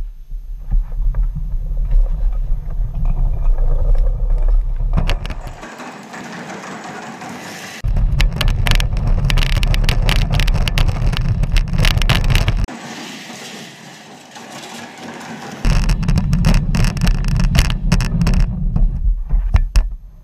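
Plastic wheels of a toddler's ride-on toy car rumbling and rattling as the car is pushed along a hard floor, picked up through a camera fixed to the car's body. The deep rumble drops away twice for a few seconds, with many sharp clicks and knocks throughout.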